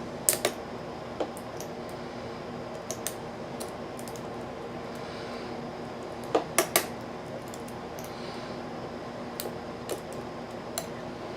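Small, scattered metallic clicks and taps of a lock pick and tension wrench working the pins inside a five-pin Nu Set rim cylinder lock, with the sharpest clicks about six and a half seconds in.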